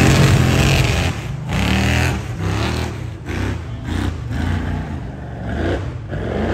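Rock bouncer buggy's engine revving hard in repeated surges as it claws up a steep rocky hill, with the tyres spinning and spraying dirt and stones. It is loudest at the start.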